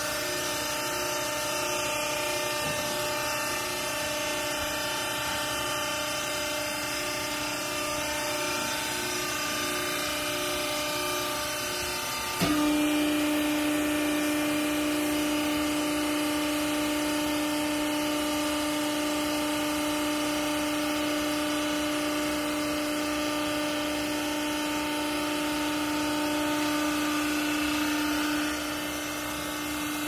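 Vertical hydraulic baler's electric pump motor running with a steady hum. About twelve seconds in there is a click and the hum jumps louder with a strong steady whine as the pump comes under load to drive the press ram down onto the rags, then it eases off near the end.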